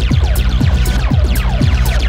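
Electronic music with a fast, even beat, a steady bass underneath, and tones that slide downward again and again.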